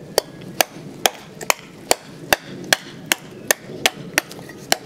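A Cold Steel Survivalist large drop-forged knife chopping dry, hard wood with about a dozen quick, even strikes, roughly two and a half per second.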